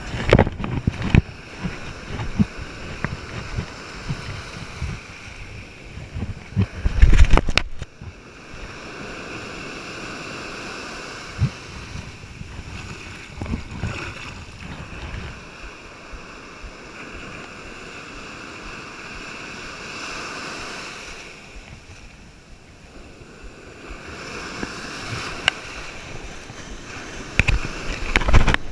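Ocean surf washing on a beach as a steady hiss, with low thumps and rumbles of wind and handling on the microphone in the first few seconds, the loudest about seven seconds in, and again near the end.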